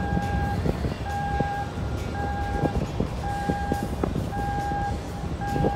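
Electronic warning beeper on airport ground equipment, sounding steady half-second beeps about once a second over a low engine rumble.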